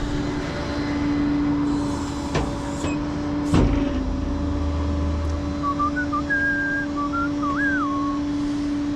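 Outdoor street ambience with a steady hum. A sharp knock comes about three and a half seconds in, followed by a low rumble, and a short wavering whistle, like a few whistled notes or a bird, sounds in the second half.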